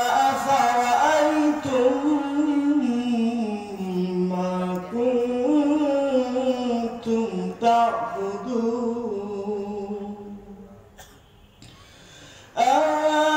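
A man's solo voice reciting the Quran in Arabic in a melodic tilawat style, drawing one long phrase out with held and gliding notes. The voice fades out about ten seconds in, pauses briefly, and then starts the next phrase near the end.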